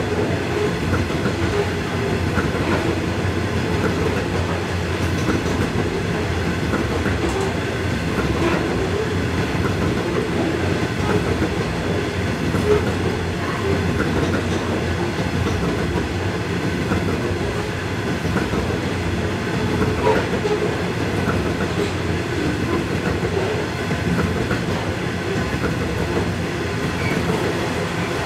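Loaded coal train of steel bogie hopper wagons rolling steadily past close by, the wheels rumbling and clattering on the rails.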